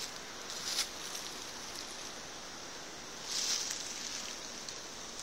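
Quiet forest ambience: a steady high hiss with two brief rustles, one about half a second in and a louder one a little past the middle.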